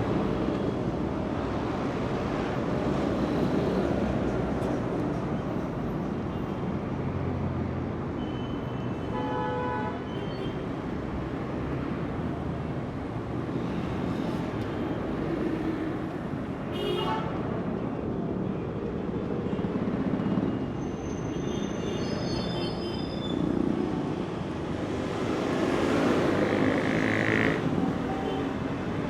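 Heavy street traffic: a steady rumble of trucks, buses and cars passing, swelling near the end as a vehicle goes by. A few brief high pitched tones stand out, one about nine seconds in, another around seventeen seconds and several short ones a little after twenty seconds.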